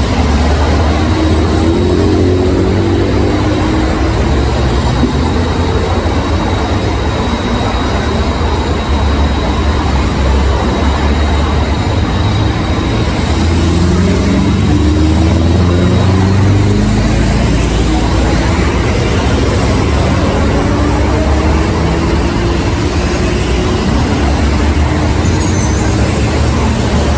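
Heavy diesel truck engine running with a deep, steady rumble, its note rising three times as the engine speeds up.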